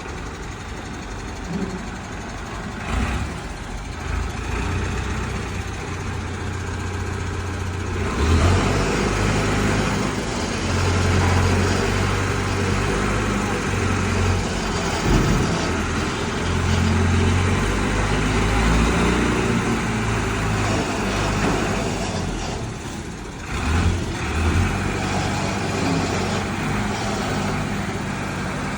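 Engine of a heavy vehicle or machine running continuously, its low hum stepping up and down in pitch and getting louder from about eight seconds in, with a short dip near the end.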